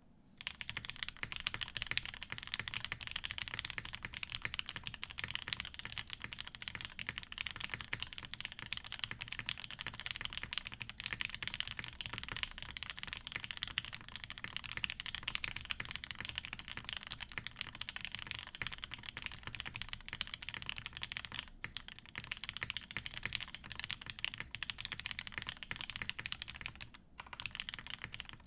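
Continuous fast typing on a Mode80 FE TKL mechanical keyboard with lubed Alpaca linear switches, a polycarbonate plate in a gasket mount and GMK keycaps. The typing starts about half a second in and has a short pause near the end.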